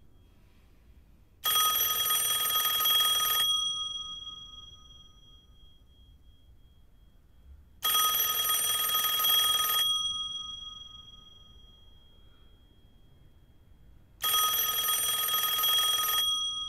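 Wall-mounted telephone ringing three times, an incoming call left unanswered. Each ring lasts about two seconds and trails off as it fades, with the next ring about six seconds later.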